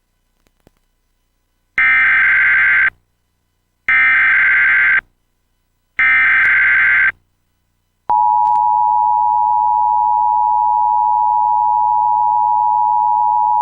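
Emergency Alert System SAME header: three bursts of screeching digital data tones, each about a second long and spaced two seconds apart. About eight seconds in, the steady two-tone EAS attention signal starts and holds, announcing that an emergency alert, here a tornado warning, is about to be read.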